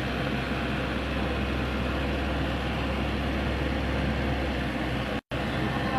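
Excavator's diesel engine running steadily, a low hum with a hiss over it. The sound cuts out for a moment about five seconds in.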